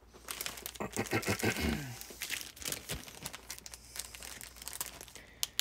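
Plastic food packaging crinkling and rustling as it is handled, in quick irregular crackles.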